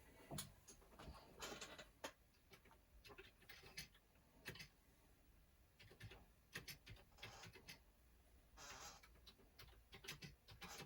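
Faint, irregular clicking of keys being typed on a Commodore 64 keyboard, single key clicks mixed with short quick runs of keystrokes.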